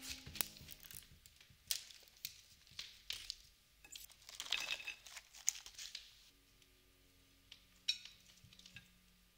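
Close-up handling of food packaging and small chocolate sandwich cookies on ceramic plates and a wooden table: scattered light clicks and taps, with a denser spell of crinkling and rustling in the middle.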